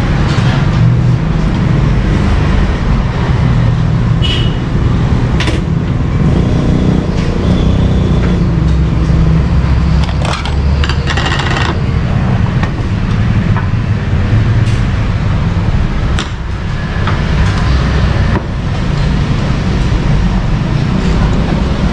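Steady rumble of street traffic, with a few short clinks and clatters of plates and serving spoons at the counter, the busiest a little after the middle.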